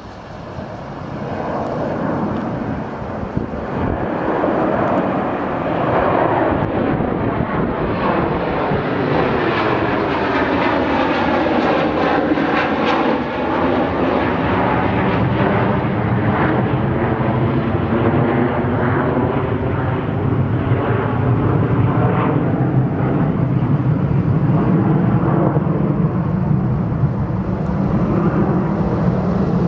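Jet airliner with two rear-mounted engines taking off and climbing out overhead. Its engine noise grows louder over the first few seconds. A swooshing, shifting tone sweeps through it as the jet passes overhead about twelve seconds in, then a steady heavy rumble carries on as it climbs away.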